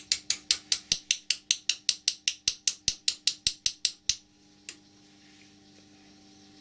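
Small ball-peen hammer tapping rapidly on the end of a metal pin set in a brass part held in a vice, about five light metallic blows a second, fixing the pin in place so it won't come out. The blows stop about four seconds in, followed by one last tap.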